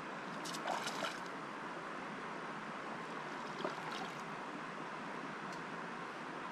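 River water flowing steadily, a constant rushing hiss, with a few brief sharper sounds about a second in and again near the middle.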